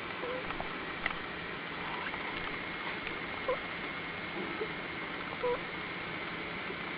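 Sleeping prairie dog snoring with short, squeaky peeps a second or two apart, over a steady hiss.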